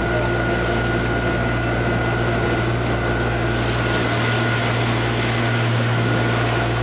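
Canal tour boat's motor running steadily: a constant hum over an even rushing hiss.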